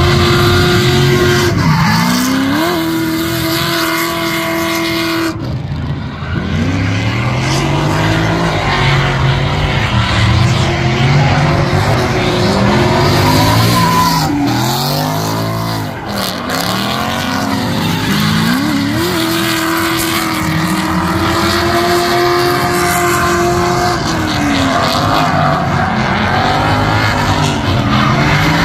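Drift cars sliding past at high revs, a C5 Corvette's V8 among them, with tire squeal and skidding. The engine pitch is held high for a few seconds at a time, then drops and climbs again as the throttle is worked through the slide. The sound breaks off abruptly twice and picks up on another car.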